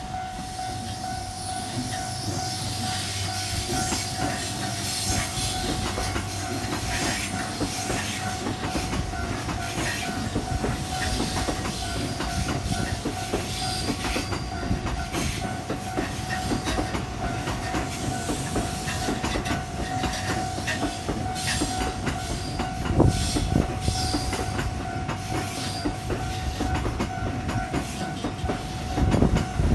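JR Narita Line train passing over a level crossing, its wheels clattering over the rail joints, with the crossing's warning bell ringing steadily above it. Two heavier thuds stand out, about 23 seconds in and near the end.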